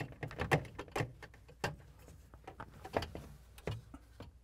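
Plastic clicks and knocks of a refrigerator water filter housing being lifted and worked off its mounting hooks, a quick run of sharp clicks at first, then a few single knocks.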